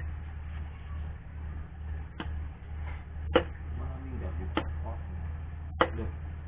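Hammer tapping metal on a motorcycle wheel hub during bearing work: several sharp taps, roughly one a second, the loudest about a third of the way in, over a steady low hum.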